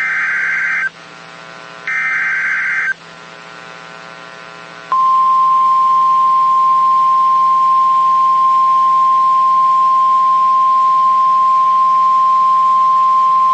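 NOAA Weather Radio Emergency Alert System signal: the last two of the three digital SAME header bursts, each a harsh buzzing data screech about a second long. After a pause of about two seconds comes the loud, steady 1050 Hz warning alarm tone, held for about nine seconds. This sequence marks the start of a new warning broadcast, here a severe thunderstorm warning.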